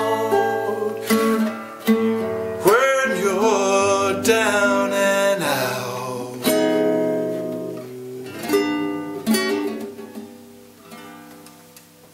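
Nylon-string classical guitar fingerpicked in a closing blues phrase, single notes and chords plucked at an unhurried pace. The last notes come a little after eight seconds in and are left to ring and fade away.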